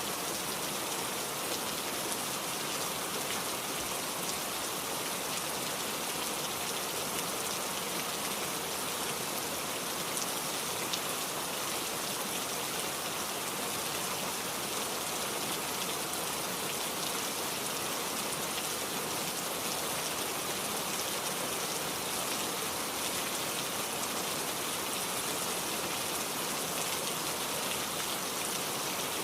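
Heavy rain falling steadily, an even hiss with scattered drops pattering on a surface.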